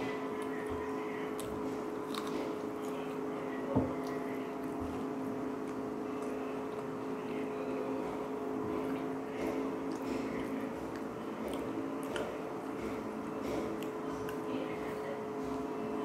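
A person chewing and squelching food at the microphone, with small wet clicks. Under it runs a steady hum with a couple of held tones, and there is a single sharp knock about four seconds in.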